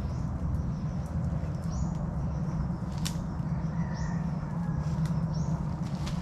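Steady low mechanical drone, with a few short high bird chirps and one sharp click about three seconds in.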